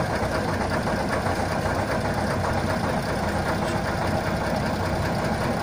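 The air-cooled Tatra six-cylinder diesel of an M53/59 Praga self-propelled anti-aircraft gun idling steadily while the vehicle stands.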